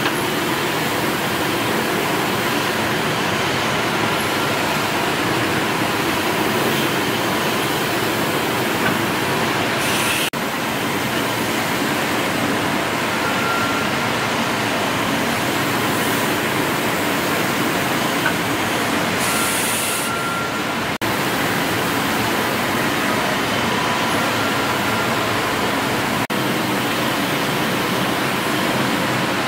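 Steady hissing, rumbling machinery noise of running stationary steam engines, with no clear beat and brief breaks about 10, 21 and 26 seconds in.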